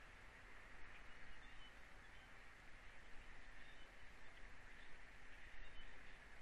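Faint outdoor ambience: a steady hiss with distant small birds chirping now and then.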